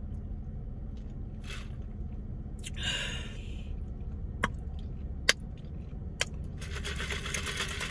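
Sipping a drink through a plastic straw from a tumbler, with a short hissing slurp about three seconds in, then a few small sharp clicks. A steady low hum of a car cabin runs underneath, and a broad hiss sets in near the end.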